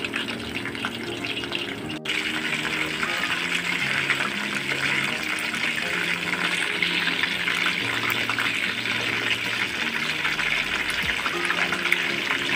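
Chicken pieces deep-frying in a pot of hot oil: a dense, steady crackling sizzle that gets louder about two seconds in. Soft background music plays underneath.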